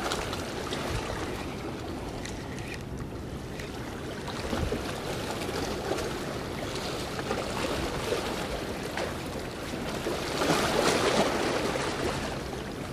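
Sea waves washing and splashing among the concrete tetrapods of a breakwater, with wind on the microphone. The wash swells louder about ten seconds in.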